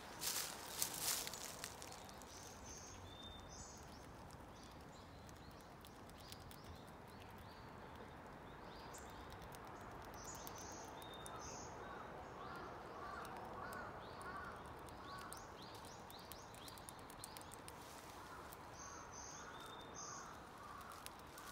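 Faint outdoor ambience: a short rustle of dry leaves in the first second or two, then scattered short high bird chirps over a steady low hush, with many faint light clicks.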